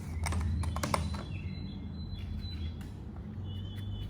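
A few light clicks and knocks of metal manicure tools and a plastic tool box being handled, bunched in the first second or so. Birds chirp faintly in the background over a low steady hum.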